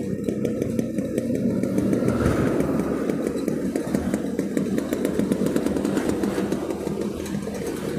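Motorcycle running steadily at road speed in traffic, its engine mixed with wind and road rumble on the rider's microphone.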